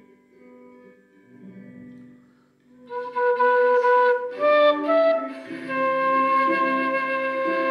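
A wooden end-blown flute comes in loudly about three seconds in, playing a melody in long held notes. Before that there is only a quiet backing accompaniment.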